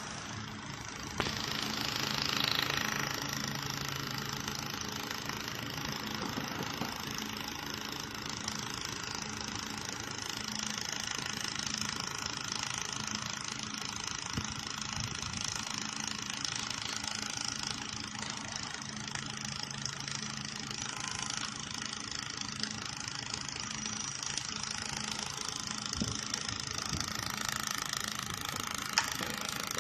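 YAG laser welding machine at work, welding the seam of a hollow stainless steel sphere turning in a rotary chuck: steady mechanical machine noise with a low hum. There is a louder, hissier stretch of about two seconds starting about a second in, and a few sharp clicks.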